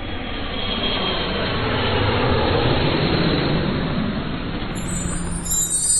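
A rumbling whoosh sound effect of a channel logo intro, a steady noise swell without speech, joined near the end by a high glittering chime shimmer.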